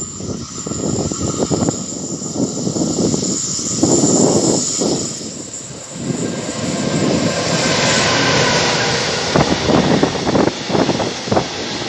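A freight train hauled by an electric locomotive running past: a steady whooshing hiss that swells as the locomotive comes near, then the rumble and clatter of the wagons rolling by on the rails. Wind buffets the microphone.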